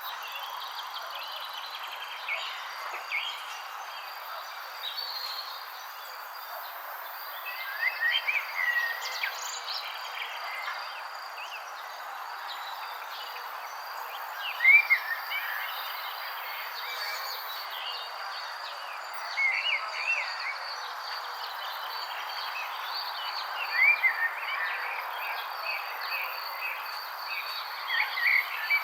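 Birds chirping in short phrases of a few quick notes every few seconds, the loudest about halfway through, over a steady high insect trill and an even background hiss.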